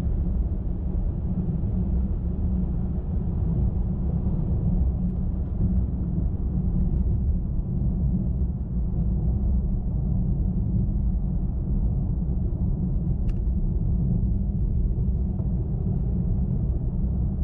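Steady low road rumble of a car cruising on a highway: tyre and engine noise with no change in speed. A single faint tick about thirteen seconds in.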